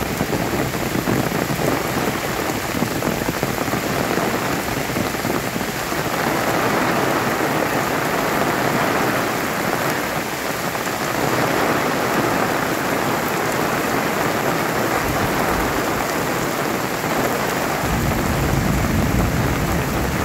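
Heavy rain pouring steadily onto foliage, palm fronds and a wet paved road: a dense, even hiss. A low rumble comes up near the end.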